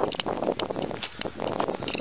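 Footsteps crunching on a railway track's gravel ballast, an irregular run of crunches and sharp clicks.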